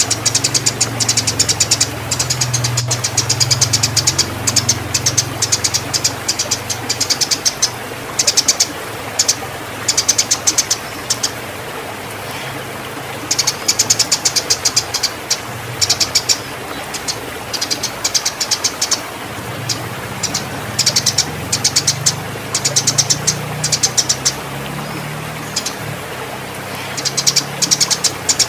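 Eurasian tree sparrows chirping in rapid chattering bursts, again and again with short pauses: the excited calls of sparrows fighting and in breeding condition. A low hum sits underneath.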